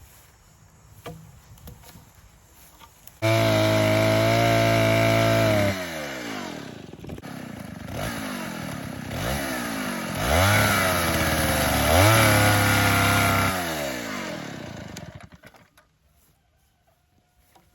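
Gas chainsaw starting suddenly at high revs, then dropping and rising in pitch several times as it bogs and recovers while cutting a small cedar post. It stops a couple of seconds before the end.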